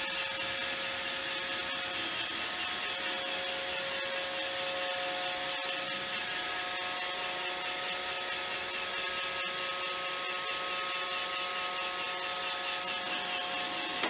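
iRobot Roomba 618 robot vacuum running as it drives itself back to its charging dock: a steady motor whine over brush and suction noise. It cuts off abruptly at the very end, as the robot settles on the dock to charge.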